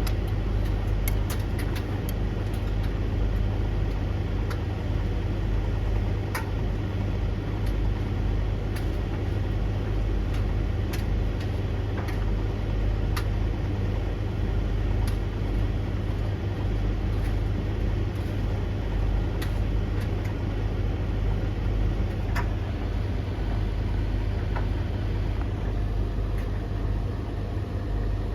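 Three tumble dryers, a Blomberg LTK310030W, a Russell Hobbs RH3VTD800 and a Hoover HLEC8TRGR-80, running together mid-cycle: a steady low hum of motors and turning drums, with scattered faint clicks throughout.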